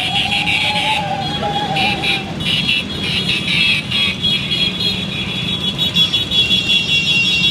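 Motor scooters and motorcycles riding past in a procession, their engines running together in a steady hum, with horns sounding in sustained high tones over them.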